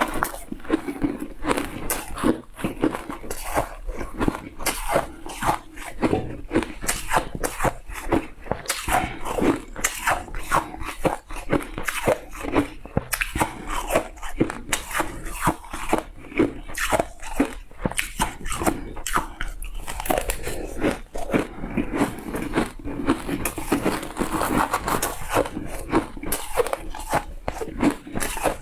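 Shaved ice being bitten and chewed close to the microphone: a dense, continuous run of crisp crunches, several a second.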